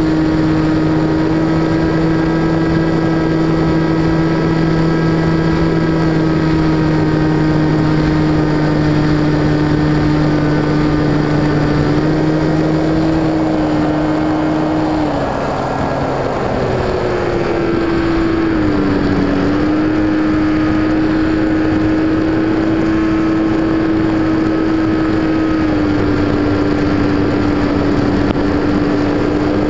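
Electric motor and propeller of an FPV Raptor model plane, heard through its onboard camera, running at a steady pitched whine over a rush of air. About halfway through, the pitch drops and wavers for a few seconds, then settles back to a steady whine.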